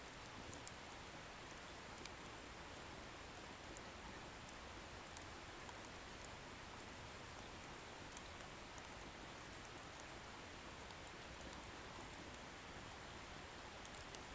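Wood bonfire burning: a faint, steady hiss with scattered tiny crackles of the firewood.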